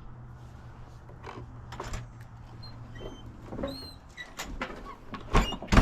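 Scattered clicks, knocks and short squeaks of objects being handled over a steady low hum, with two sharp knocks near the end.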